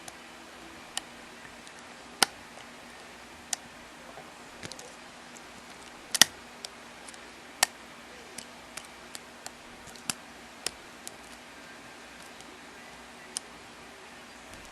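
Lock pick and tension tool working the pins of a custom challenge lock: scattered, irregular sharp metallic clicks and ticks, a few much louder than the rest.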